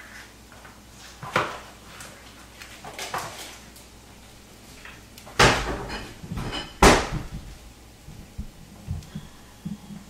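Kitchen clatter of things being handled at the counter: several knocks, with two loud bangs about five and a half and seven seconds in.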